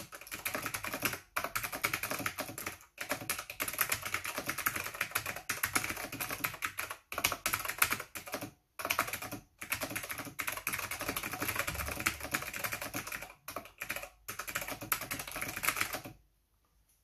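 Fast, continuous typing on a 1991 Acer 6012 keyboard with Alps SKCM white switches: rapid keystrokes with a few short pauses. It stops about a second before the end.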